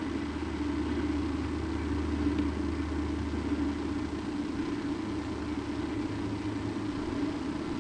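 A steady low hum and rumble over a constant hiss. The deepest part of the rumble fades about four seconds in.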